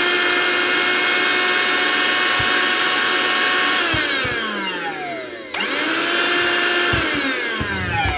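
Fujiway AK-007A cordless handheld vacuum cleaner's motor running with a high, steady whine, switched off about four seconds in so the pitch falls as it winds down. It is switched on again about a second and a half later, the whine rising back up, and winds down again near the end.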